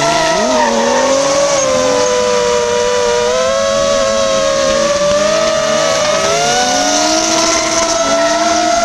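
FPV racing drone's propeller whine, a loud steady hum that wavers slightly in pitch with throttle. Underneath it, the chased drift cars' engines rev up and fall back again and again through the run.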